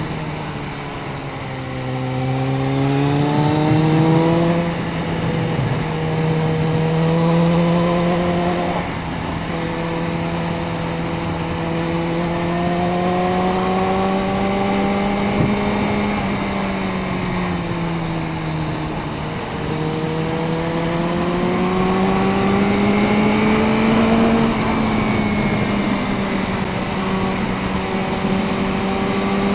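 Suzuki Bandit 650N inline-four engine heard from on board while riding. The revs climb and drop back sharply about four and nine seconds in as it shifts up. It eases off for a few seconds past the middle, then pulls up through the revs again with another shift near the end.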